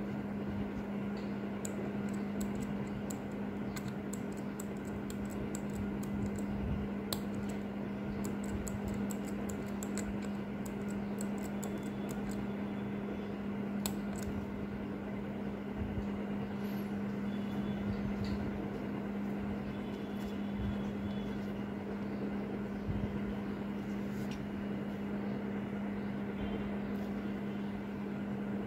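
Light metallic clicks and taps of steel tweezers and small parts against a watch movement in its holder, many in the first half and only a few later, over a steady hum.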